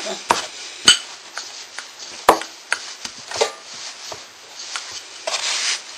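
Wooden rolling pin knocking on a block of puff pastry dough on a wooden pastry board, beating it to recompact it after the fold: a handful of irregular knocks, the loudest about a second in and just after two seconds.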